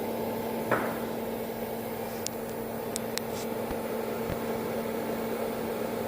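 Steady electrical hum from powered bench equipment, with a faint hiss and one sharp click just under a second in, then a few faint high ticks.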